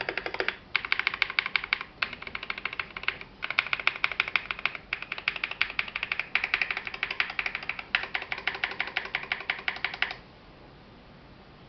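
Fast typing on a Melody 96 mechanical keyboard with lubed Salmon switches, CRP C64 dye-sub clone keycaps and a tape and PE foam mod: a steady rapid patter of keystrokes in short runs with brief pauses, stopping about ten seconds in.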